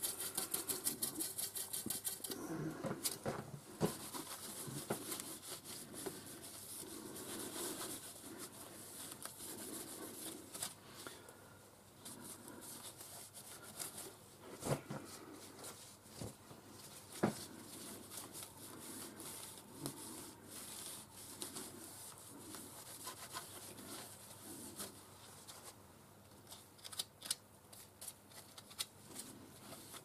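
A gloved finger rubs fast and evenly inside the bore of a lathe collet chuck for about the first two seconds. Then come scattered handling knocks and clicks of tools and metal parts, with one sharp knock about halfway through and a few quick clicks near the end.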